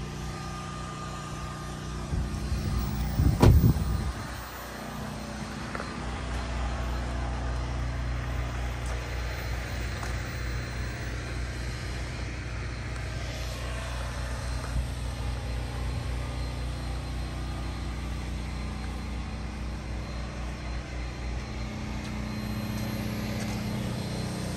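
A motor running steadily with a low, evenly pulsing hum, after a loud thump about three and a half seconds in.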